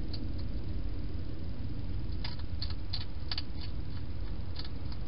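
Wild hedgehog chewing food at a feeding dish: a run of short, crisp crunches starting about two seconds in, over a steady low hum.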